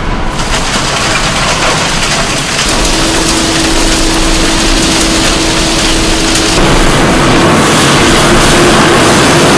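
Loud, steady machinery noise from a concrete batching plant, with belt conveyors and motors running and a steady hum for a few seconds in the middle. About two-thirds of the way through, the noise turns brighter and louder as a wheel loader's diesel engine works among the gravel piles.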